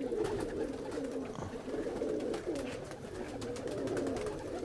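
A loft full of domestic pigeons cooing together, many overlapping low warbling coos without a break.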